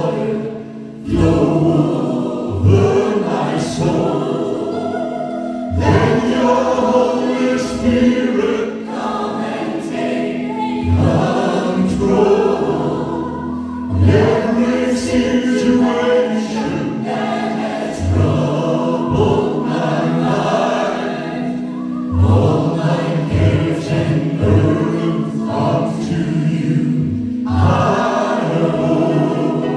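Gospel song: a choir singing over instrumental backing with a held low tone and regular bass notes.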